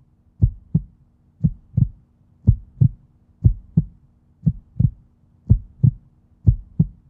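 Heartbeat sound effect: a steady lub-dub, two low thumps close together, repeating about once a second, over a faint steady hum.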